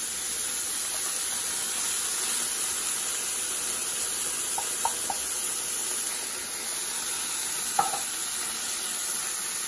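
Chicken pieces sizzling in olive oil in a frying pan while canned kidney beans are tipped in. A few brief clinks come about halfway, three close together, and another near the end.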